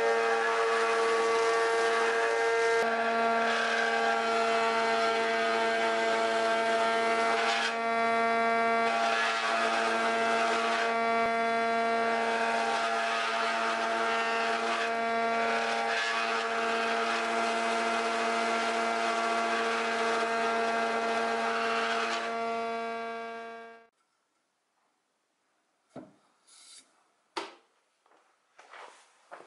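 Mortising attachment of a combination planer/jointer running as it cuts a mortise in a pine beam: a steady motor hum with a rough cutting noise that swells and eases as the bit works the wood. The machine sound ends about three-quarters of the way through, followed by a few light knocks of wood and a clamp being handled on a workbench.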